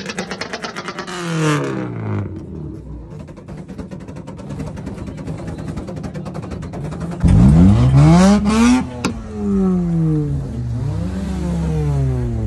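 A modified car's engine running through an aftermarket exhaust: it settles to a rapid, even putter, then about seven seconds in it is revved hard several times, the pitch climbing and falling with each rev, with one sharp crack from the exhaust among them.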